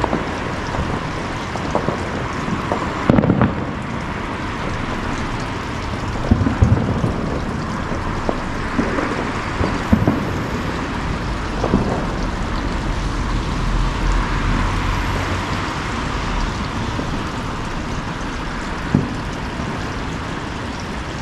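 Fireworks going off: a steady crackling hiss with irregular bangs, the loudest about three seconds in.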